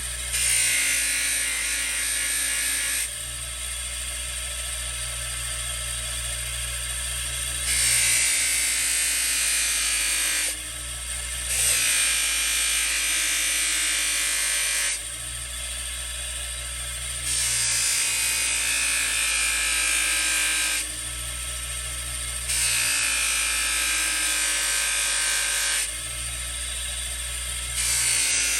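Electric polishing wheel motor running steadily with a low hum, while a copy-chromed ratchet is pressed against the buffing wheel in spells of about three seconds. Each spell adds a louder, hissing scrub, six times in all.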